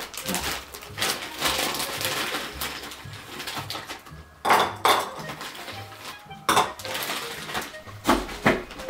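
Plastic bag of ice crinkling and rustling, then several sharp clinks of ice cubes and glass as a whisky highball is made, over soft background music.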